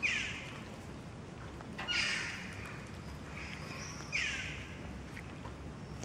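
Kittens mewing: three short, high-pitched mews, each falling in pitch, about two seconds apart.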